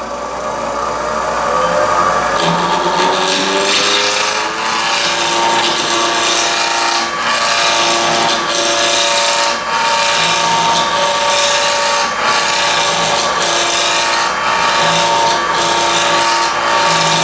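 Wood lathe motor speeding up, its tones rising over the first two seconds or so and then holding steady. About two and a half seconds in, a turning tool starts cutting the small spinning wood blank to round it: a steady scraping rasp over the motor whine, with short breaks about every second.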